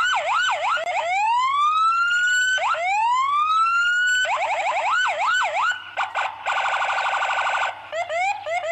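Electronic police car siren cycling through its tones: a fast yelp, long rising wails that drop back abruptly and climb again, and a rapid warbling pulse a little past the middle. A low steady hum runs underneath.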